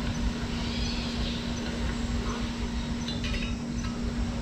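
Outdoor ambience: a steady low hum over a low rumble, with faint bird chirps about a second in and again around three seconds.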